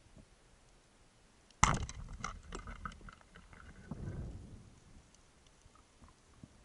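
A speargun fires underwater with one sudden sharp crack about one and a half seconds in. A second or so of scattered clattering knocks follows, then a low rumble about four seconds in.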